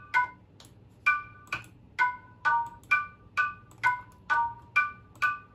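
Sampled bell sound playing a short melody of struck notes, about two a second, each ringing briefly and dying away, with a short pause near the start.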